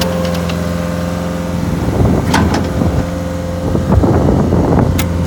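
Cat 277C loader's diesel engine running steadily, with a few sharp clicks or knocks about two seconds in and again near the end.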